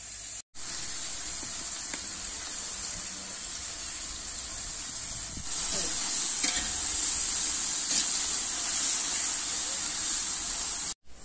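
Sliced onions sizzling in hot oil in a large metal pot, stirred with a slotted metal ladle. The sizzle gets louder about halfway through.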